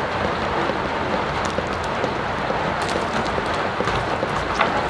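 Steady hiss of rain falling on wet pavement and puddles, with a few light taps.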